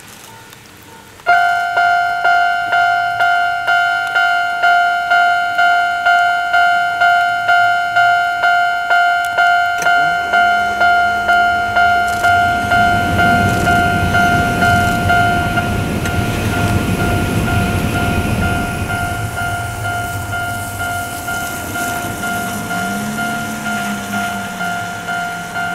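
Japanese level-crossing alarm ringing: an electronic two-tone bell starts suddenly about a second in and dings about one and a half times a second. Partway through, a low hum rises and a rumble swells from a train.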